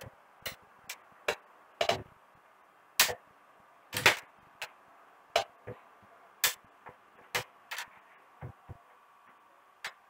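Screwdriver and pliers clicking and tapping against the LED strips of an LCD TV's backlight panel: irregular sharp clicks, a little under two a second.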